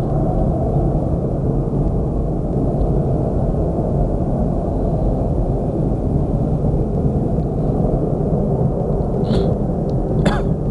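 Steady low rumble in the night sky: the strange mechanical hum that comes and goes. Two brief faint chirps sound near the end.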